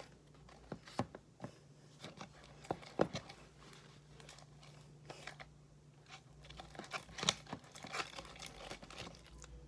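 Homemade glue slime being mixed in a container, giving faint, irregular small clicks and sticky sounds. It is partly activated with baking soda and contact lens solution, still a little sticky but starting to pull away from the container's sides.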